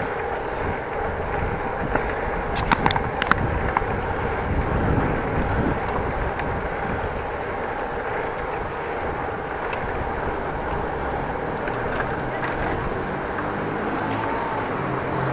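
Road traffic noise around a bicycle in city streets, with motor vehicles running close by. A faint high chirp repeats about every 0.7 s and stops about ten seconds in.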